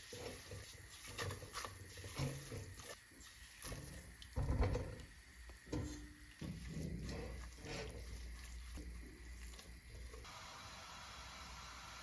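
Kitchen handling sounds: a string of soft knocks and clatters, the loudest about four and a half seconds in.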